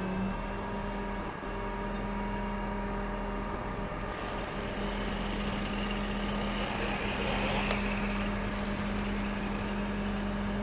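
Crane's engine running steadily, a constant even hum, with a rushing hiss rising over it from about four to eight seconds in.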